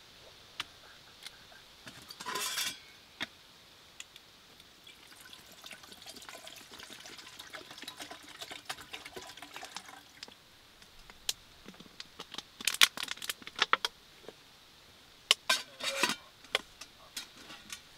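A brief crackle of a plastic water bottle, then water poured from it into a small metal camping kettle for about five seconds. Then sharp metallic clinks and clanks of the kettle's lid and handle as it is closed and handled.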